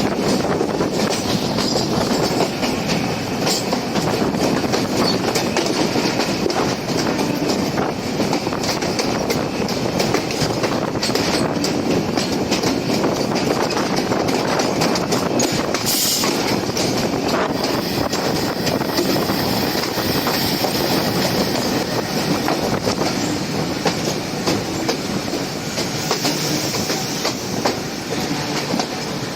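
Passenger train running along the track: a steady rumble of wheels on rail with a rapid clickety-clack, and one sharper clack about sixteen seconds in.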